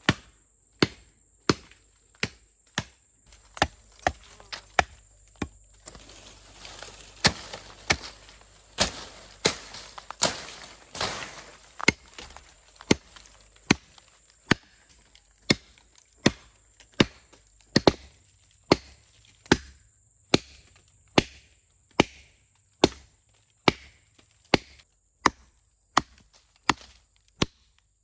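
A heavy blade chopping into a felled log, cutting a notch: sharp, even blows about one every three-quarters of a second, with some rustling of leaves between strokes in the middle.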